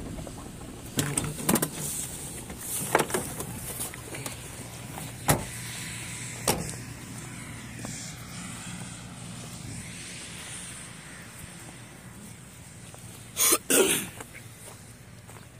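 Scattered clicks and knocks, then two loud bursts in quick succession near the end.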